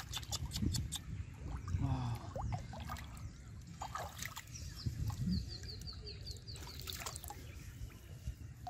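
Hands splashing and sloshing in shallow pond water, with irregular small splashes and trickling as water runs off. About five seconds in, a bird gives a rapid run of short high chirps.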